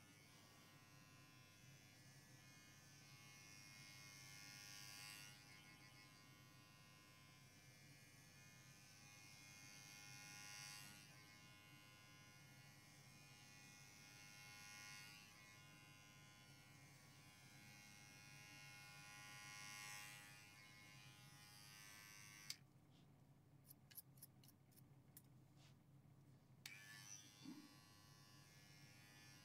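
Faint buzz of an electric pet hair clipper trimming long cat fur, running steadily and swelling about every five seconds. It cuts off about three-quarters of the way through, a few light clicks follow, and it starts again near the end.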